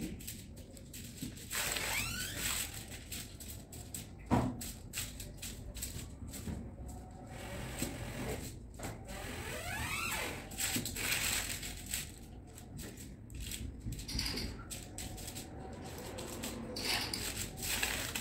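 Aluminium foil crinkling and rustling in irregular crackles as hands press and shape a sticky date mixture on it.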